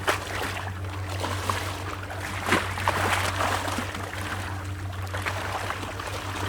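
Sea waves washing and splashing against rocks, with sharper splashes about two and a half and three and a half seconds in, over a low steady hum.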